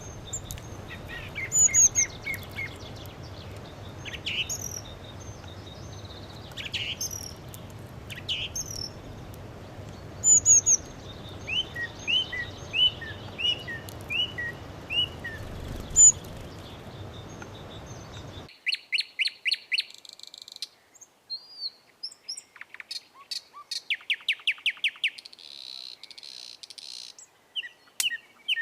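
House sparrows chirping: short repeated chirps, some in quick runs, over a steady low background hum that cuts off abruptly about two-thirds of the way through, leaving the chirps on a quieter background.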